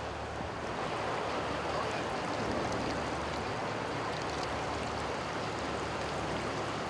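Flash floodwater thick with hail and debris rushing past in a steady wash, over a low steady hum.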